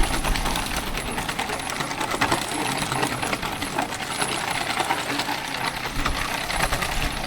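Steel ball-bearing wheels of a homemade wooden cart rolling at speed, a continuous dense metallic rattling clatter.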